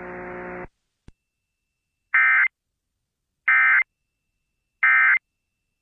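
Emergency Alert System end-of-message (EOM) code: three identical short, harsh digital data bursts about a second and a half apart, signalling that the alert message is over. Before them a steady hum cuts off under a second in, followed by a faint click.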